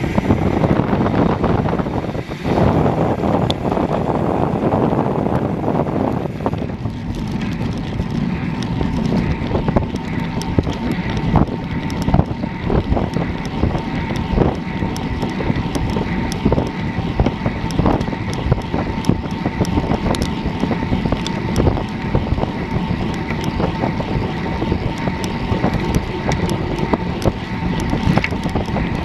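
Heavy wind buffeting on the microphone of a bike-mounted camera on a road bike moving at around 40 km/h. From about seven seconds in, many small clicks and rattles from the bike on the road join the wind.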